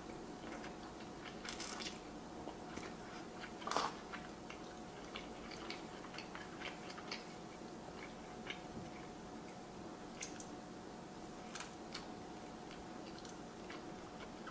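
A person chewing pepperoni pizza: soft, scattered wet mouth clicks, with a couple of slightly louder bites or chews in the first four seconds.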